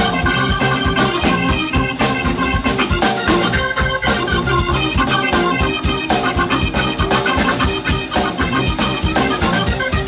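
A rock band playing live, with an organ-sound keyboard leading over steady drums.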